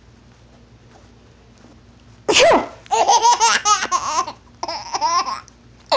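About two seconds in, a person sneezes once, and a baby boy answers with laughter in quick repeated bursts, in two runs.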